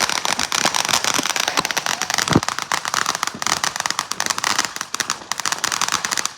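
Fireworks crackling and popping in a rapid, continuous stream of sharp reports, with one heavier bang about two and a half seconds in.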